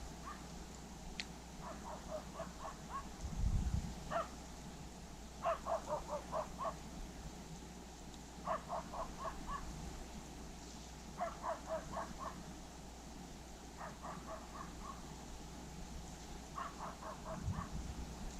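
A crow-like bird calling over and over: groups of five or six short, quick calls, a group every two to three seconds. There is a low thump about three seconds in and another near the end.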